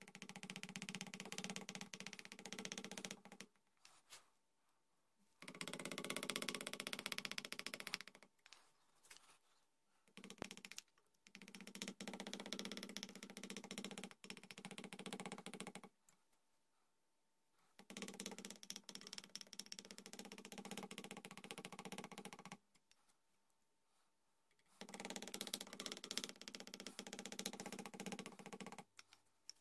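Small hand carving tool cutting and scraping into a wooden long-rifle gunstock in about six passes of a few seconds each, with short pauses between. Each pass is a dense, rapid chatter of tiny strokes.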